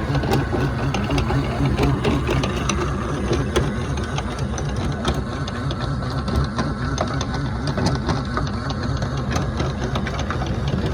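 Diesel engine running steadily aboard a tour boat, heard close from below deck: a low rumble with a fast, even mechanical clatter.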